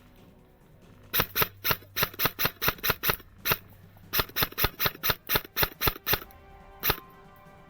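Airsoft rifle firing a quick string of single shots: sharp clicks about four or five a second, starting about a second in, pausing briefly midway and thinning to a couple of spaced shots near the end.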